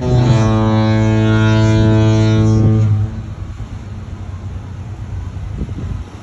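Disney Fantasy cruise ship's musical horn holding one long, deep note of its tune for about three seconds, then stopping. Wind and outdoor noise follow.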